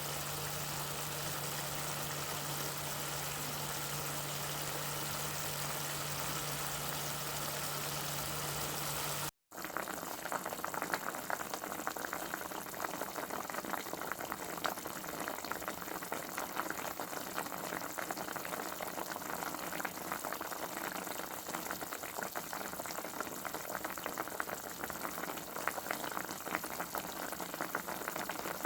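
A steady mechanical hum, which cuts off abruptly with a moment of silence about nine seconds in. Then comes the continuous bubbling and crackling of food cooking at a boil.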